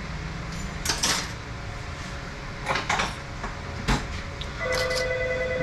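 Metal parts of a Mercedes 722.6 (NAG1) automatic transmission being handled on the bench: a few separate clinks and knocks as clutch-pack parts are slid off and set down. Near the end a steady humming tone begins.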